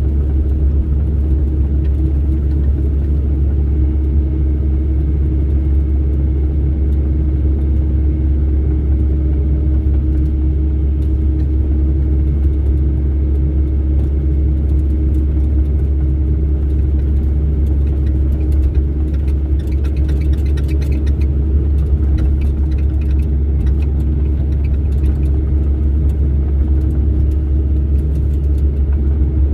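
Excavator's diesel engine running steadily with a deep, even rumble and a faint rattle about two-thirds of the way through.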